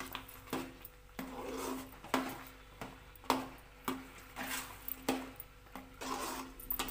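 A metal ladle scraping and knocking against an aluminium kadai as thick rava kesari (semolina sweet) is stirred with ghee. The strokes come about every half second, each with a short ring from the pan.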